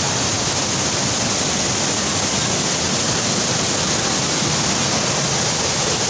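Waterfall's falling water: a loud, steady rush.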